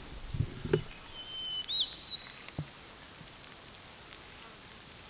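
Outdoor ambience with a short bird call, a few high whistled notes about two seconds in, and a couple of light knocks around it.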